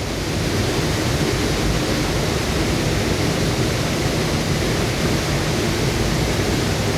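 A large waterfall rushing and splashing close by: a loud, steady roar of falling water.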